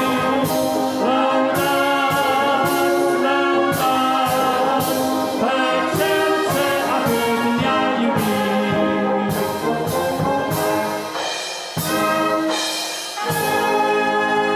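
Brass band of trumpets, trombones, euphoniums and tubas playing a hymn in full harmony with sharp accented beats. About eleven seconds in it drops softer and swells back, then settles into one long held chord near the end.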